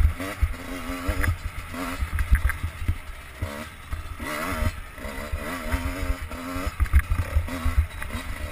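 Enduro motorcycle engine heard from the rider's helmet, revving up and dropping back over and over as the throttle is opened and closed on a rough grass track, with low knocks and buffeting on the microphone.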